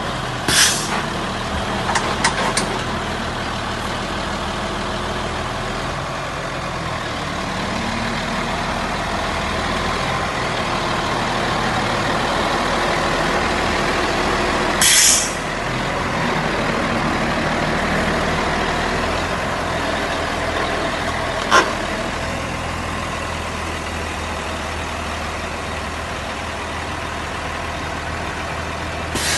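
Diesel engine of a 2006 Caterpillar 140H motor grader running steadily, a little louder through the middle. Three short hisses come through it, one just after the start, one midway and one at the end, with a single sharp click a little past two-thirds through.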